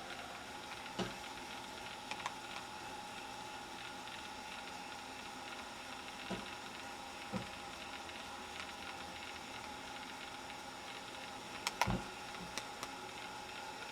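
Steady faint room hum with a handful of soft, scattered clicks and knocks, the loudest cluster near the end.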